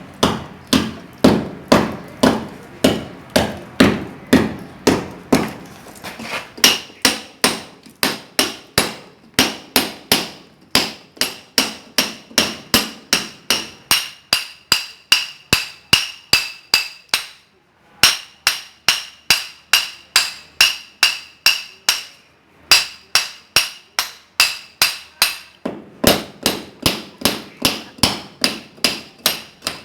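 A hand sledgehammer strikes a steel cold chisel to cut into a masonry wall, in a steady rhythm of about two blows a second. From about six seconds in, each blow rings with a metallic tone. The hammering pauses briefly twice, in the second half.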